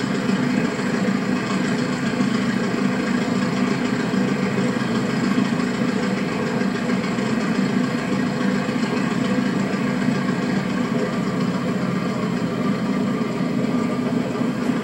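An engine running steadily, a low, even drone that does not change.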